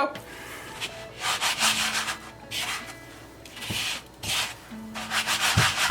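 Breaded chicken pieces sizzling in hot oil in a frying pan, a hiss that swells and fades in several uneven surges.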